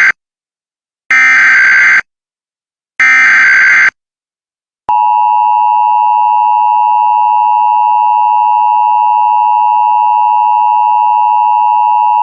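Emergency Alert System signal: two of the three SAME header data bursts, harsh digital squawks about a second long and about a second apart, then about five seconds in the EAS two-tone attention signal (853 and 960 Hz sounding together) starts and holds steady and loud.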